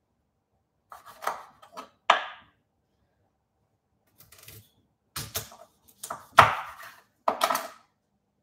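Chef's knife cutting a raw watermelon radish on a wooden chopping board: a string of irregular short knocks as the blade goes through the radish and strikes the wood.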